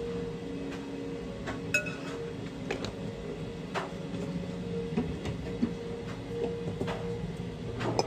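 Metal spoon clinking and tapping against a glass bowl and seasoning jar while seasoning sliced pork: a few sharp taps, one ringing briefly just under two seconds in. A steady mechanical hum from a kitchen appliance runs underneath.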